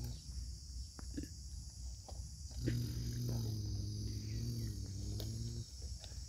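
A small electric motor in a toy excavator hums low and steady. It stops just after the start and runs again for about three seconds from about two and a half seconds in. Insects chirp high and steady throughout, with a few light clicks of plastic and dirt.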